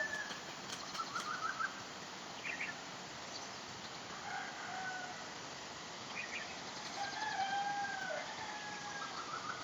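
Faint distant birds calling: drawn-out calls, each about a second long, come several times, with short bursts of chirps between them.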